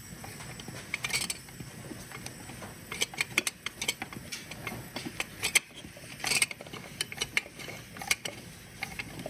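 Scattered clicks and light metallic clatter of a leak-down tester's fittings and air hose being handled while compressed air is fed slowly into the cylinder, over a faint steady hiss.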